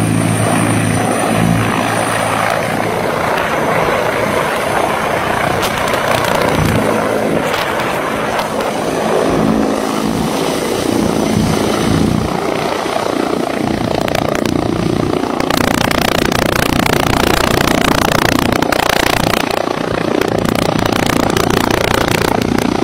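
T129 ATAK attack helicopter running, a steady loud rotor and turbine noise that grows louder and brighter about fifteen seconds in.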